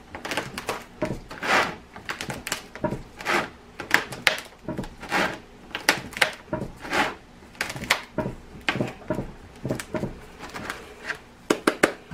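3D-printed plastic bath bomb mold being pressed and turned by hand as the mix is packed in: a run of irregular plastic clicks and knocks.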